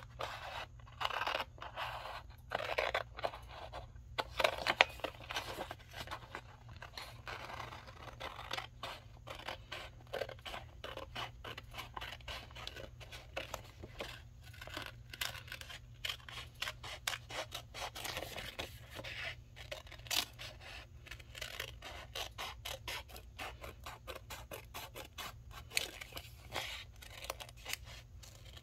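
Scissors cutting paper by hand: a long, irregular run of short snips as the blades work around a printed sign, a little louder in the first few seconds.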